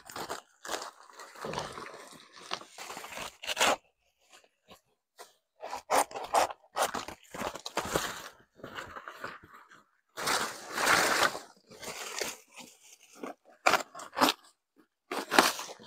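Dry, papery banana leaf sheaths crunching and rustling in irregular bursts as they are cut and torn away from the base of the stem.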